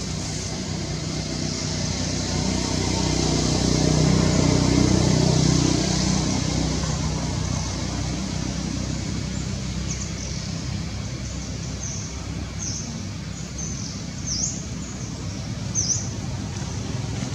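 Outdoor ambience: a motor vehicle's engine hum that swells a few seconds in and then eases. From about halfway, a bird gives repeated short, high, falling chirps, about seven in all.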